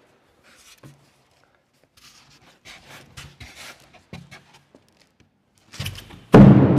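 Polystyrene packing insert being worked out of a cardboard shipping crate: faint scraping and rustling, then about six seconds in a sudden loud, low squeaking groan as the polystyrene rubs against the cardboard.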